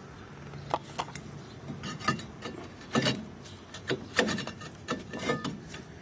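Rear brake drum of a 2002 Saturn SC2 being slid back over the drum brake shoes and turned by hand: a string of irregular metal scrapes and knocks as the drum rubs against the shoes.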